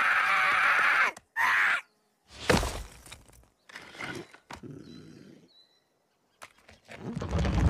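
Sound effects from an animation of a small tree creature dancing and then falling face down: a loud sustained hiss-like sound in the first second, a heavy thud about two and a half seconds in, then a few smaller knocks and faint squeaks, and a low rumble building near the end.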